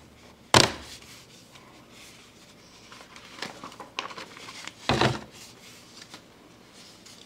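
A few scattered sharp knocks in a small room, with faint rustling between them: a loud one about half a second in, two lighter ones a little past three seconds, and a loud double knock about five seconds in.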